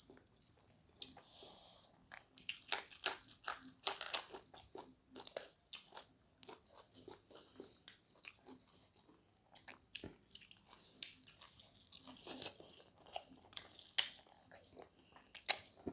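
Close-miked chewing and biting of chicken gizzard and liver: many small crunchy, wet mouth clicks in an uneven chewing rhythm.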